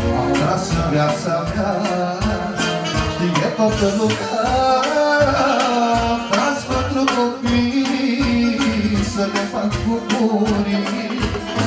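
A man singing live into a microphone over amplified party band music with a steady drum beat.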